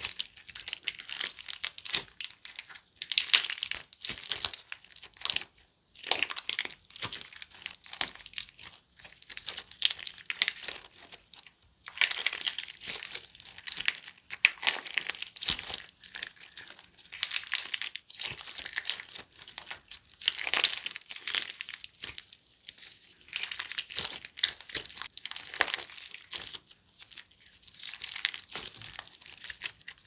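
Monggle Factory Peach Relaxer clear slime being squeezed, folded and stretched by hand, giving dense crackling clicks with a couple of brief lulls.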